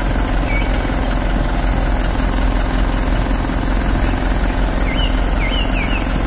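Truck engine running steadily, driving the hydraulics of a truck-mounted aerial work platform as its boom and basket move. A few faint, short high squeaks come near the end.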